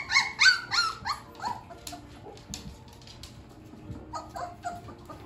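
Dog whimpering in a quick run of short, high squeaks, about four or five a second, loudest at the start and fading out within two seconds, then a few more about four seconds in.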